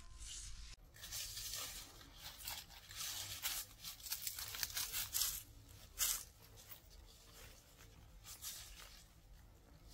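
Freshly cut green reeds and leafy stems rustling and tearing as they are handled, in irregular bursts, the loudest about six seconds in.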